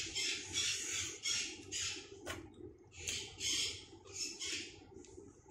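A parrot squawking over and over, short harsh calls about two a second that stop near the end, with one sharp click about two seconds in.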